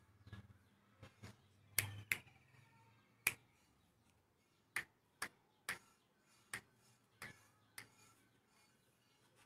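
About a dozen sharp, short clicks at uneven intervals, the loudest in the first three and a half seconds, over a quiet background.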